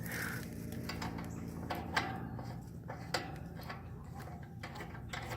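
A few sharp clicks and taps from handling the metal parts of a dead air conditioner condensing unit, over a steady low hum.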